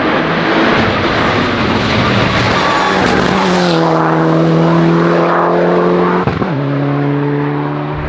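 Mitsubishi Lancer Evo 9 RS rally car's turbocharged four-cylinder engine running hard under full throttle. About three seconds in there is a brief hiss as the throttle comes off, and the note falls and then holds steady. A quick gear change about six seconds in drops it to a lower steady note.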